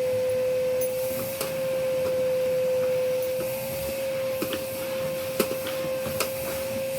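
Vacuum cleaner running steadily with a constant high whine while a pet's coat is vacuumed. Scattered sharp clicks and knocks come in over it from about halfway.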